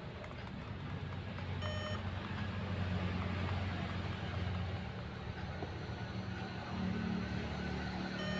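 A short electronic beep about two seconds in, with a fainter one near the end, over a low steady hum, as a laptop is switched on and boots.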